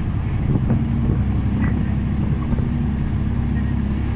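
City bus under way, heard from inside the cabin: the engine and road noise make a steady low drone with a held hum.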